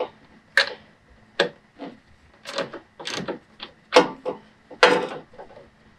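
Irregular clicks and light knocks of hand-tool work behind the grille, a nut being snugged onto the winch's cable stud, with the winch power cables rubbing as they are handled.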